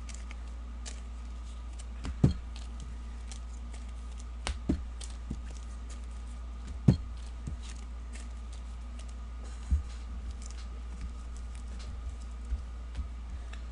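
Trading cards and packs being handled on a table: scattered light clicks and taps, with a few louder knocks, over a steady low hum.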